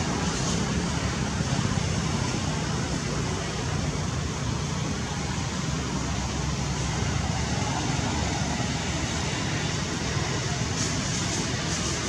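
Steady rushing background noise with a low rumble underneath, unchanging throughout.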